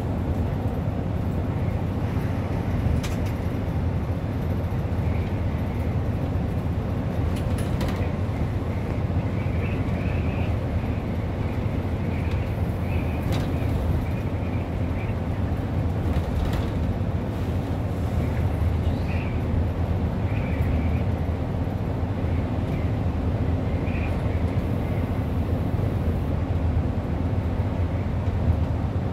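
Steady road and engine noise inside a car cruising on a multi-lane highway: an even low rumble with tyre hiss.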